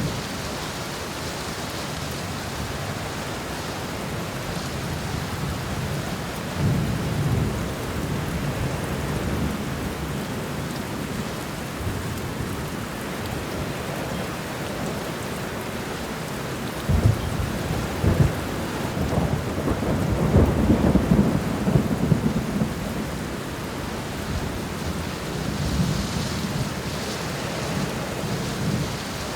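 Thunderstorm: steady rain falling, with rolling thunder rumbling several times, the longest and strongest roll in the middle.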